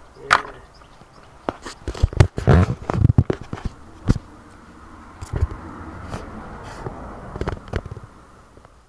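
Handling noise on a phone's microphone: a run of knocks and thumps, loudest between about two and three and a half seconds in, then rustling as the phone rubs against hair and clothing.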